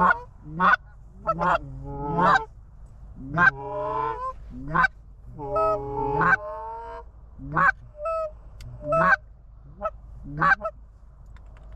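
Canada goose honks and clucks: a string of short, sharp calls about one a second, with two longer drawn-out calls a few seconds in.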